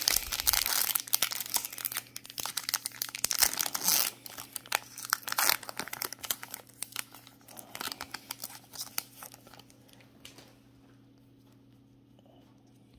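Foil trading-card pack wrapper being torn and crinkled, loudest in the first five seconds or so. Lighter crinkles and ticks follow and die away about ten seconds in.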